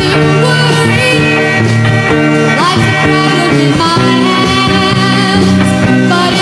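Music: a song from a playlist playing at steady loudness, with sustained pitched notes and a few sliding pitches.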